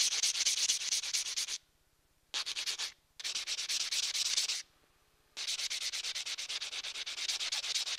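Hand-held diamond pad rubbed in rapid back-and-forth strokes over a silver and vitreous enamel champlevé piece, grinding the enamel flush with the silver. The rubbing comes in several stretches broken by short silences.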